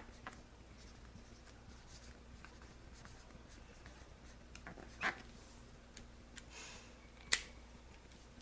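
Expo dry-erase marker writing on a whiteboard: faint scratching and squeaking strokes as a word is written, with a louder squeak about five seconds in and a sharp click a couple of seconds later.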